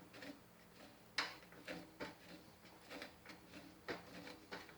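Faint, irregular metal clicks and taps of a 3/4 wrench working the nut that holds a riding mower's key switch, tightening it onto its mount, about seven clicks with the loudest about a second in.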